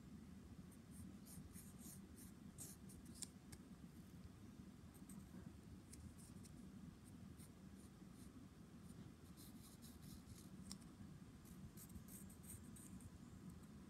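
Faint scratching of a pencil drawing on paper, in bunches of short strokes about a second or two in and again from about nine seconds, over a low steady room hum.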